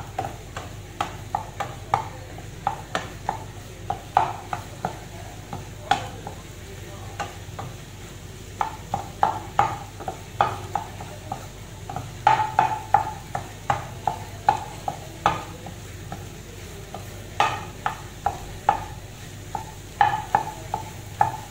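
Wooden spatula repeatedly tapping and scraping against a frying pan as it breaks scrambled egg into small pieces, over a light sizzle of frying.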